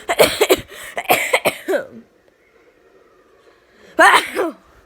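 A child coughing: a quick run of several sharp coughs over the first two seconds, then one more short voiced cough with a falling pitch about four seconds in.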